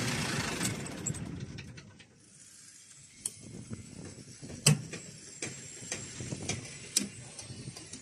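Concrete pump's engine shutting down after the cut-off button is pressed: its running sound winds down and fades out over about two seconds. Then scattered sharp clicks and knocks from the controls and battery isolator switch being handled.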